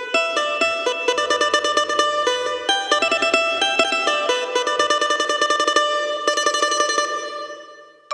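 Yamaha PSR-S770 arranger keyboard playing a plucked-string voice in quick runs of repeated notes, fading out near the end.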